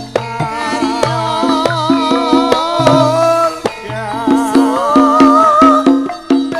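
Javanese gamelan accompanying tayub: metal keyed instruments hold steady notes under quick kendang hand-drum strokes, while a woman sings a melody with a wavering, ornamented pitch.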